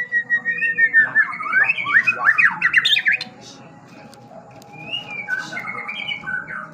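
White-rumped shama (murai batu) singing: a held whistle that breaks into a fast run of sweeping notes for the first three seconds, then quieter, softer phrases near the end.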